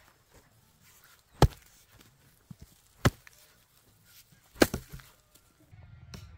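Heavy chopping blows from a hand tool: three sharp strikes about a second and a half apart, the last one followed at once by a lighter blow. Soft music comes in near the end.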